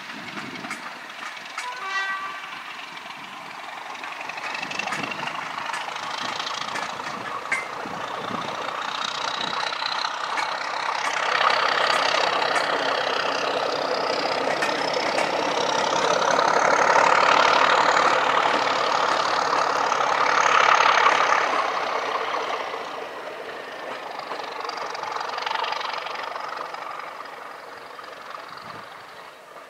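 Diesel locomotive working a train of coaches past: its engine sound builds, with a high whine that rises in pitch as it nears. It is loudest past the middle, then fades as the coaches roll by.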